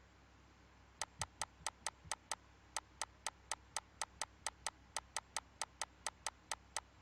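A steady run of sharp, evenly spaced clicks, about four a second, with a brief pause early on, over a faint background hum.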